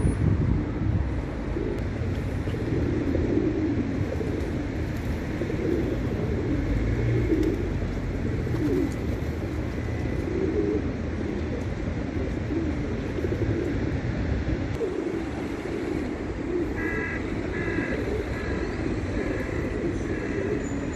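Feral rock pigeons cooing: many low, overlapping, throaty coos that repeat and run together, over a steady low background rumble. A few short higher notes come near the end.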